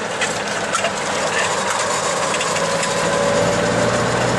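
Log truck's diesel engine running steadily, with road and cab noise, heard from inside the cab.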